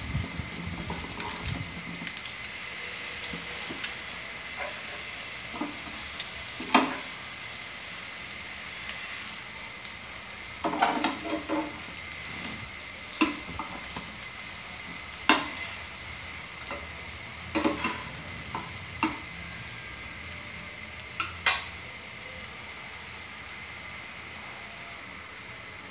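Egg-soaked bread pieces frying in a nonstick pan with a steady sizzle, and a steel spatula clicking and scraping against the pan every few seconds as the pieces are turned.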